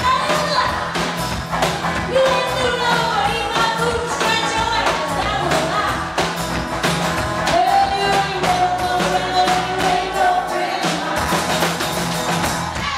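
Live rock-and-roll band playing, with a woman singing loudly over a drum kit, her voice bending and holding notes.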